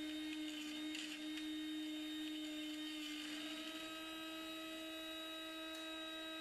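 Proxxon MF70 micro milling machine's spindle motor running at high speed, a quiet steady whine that drops slightly in pitch a little past halfway.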